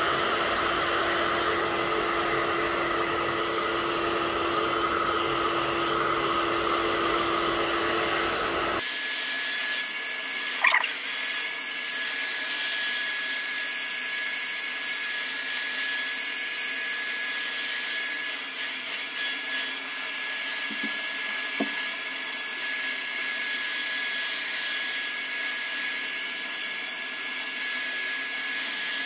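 Hand-held hair dryer running steadily, blowing on hair. About nine seconds in its sound changes abruptly from a lower hum to a higher steady whine, with a brief click a couple of seconds later.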